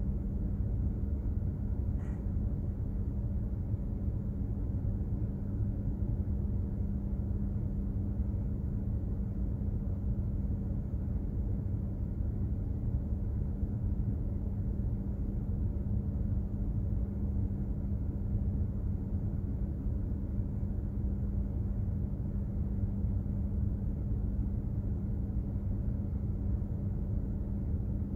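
Steady low rumble of a container ship under way, with a constant droning hum from its machinery and no change in pitch or level.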